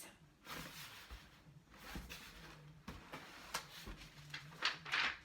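Cardboard box and paper packaging being handled, rustling and scraping in several short bursts, loudest just before the end.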